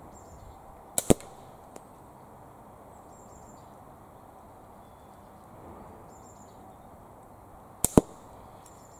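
Two catapult shots with steel balls about seven seconds apart, each a sharp double crack. One of the two is a hit on the spinner target.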